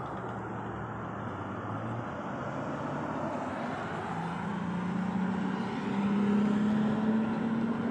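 Engine hum with a low tone that climbs steadily in pitch and grows louder through the second half.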